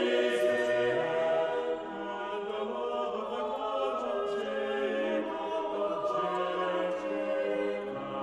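Choral music: a choir singing long held, chant-like notes. It becomes somewhat softer about two seconds in.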